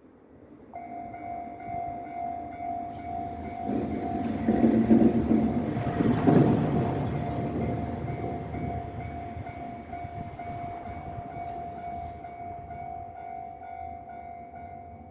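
Level-crossing warning bell starts ringing about a second in and keeps ringing steadily, while a Tosaden tram passes over the crossing, loudest a little past the middle and then fading away.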